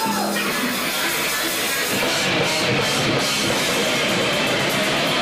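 Live rock band playing loudly: electric guitar with drums and cymbals.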